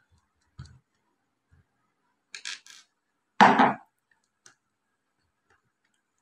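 Handling noise from a monitor's circuit board and plastic rear housing: a few light clicks, then one louder knock about three and a half seconds in.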